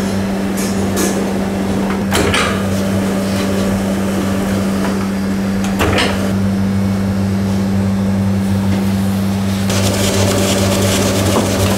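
Steady low hum of bakery machinery, with brief handling noises about two and six seconds in. About ten seconds in, a broader rushing noise joins the hum.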